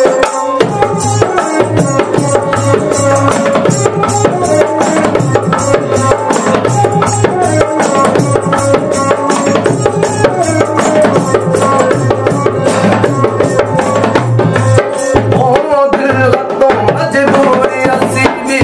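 Dholak, a two-headed barrel drum, beaten with both hands in a quick, steady folk rhythm over held melodic tones from an accompanying instrument, in an instrumental passage of the song.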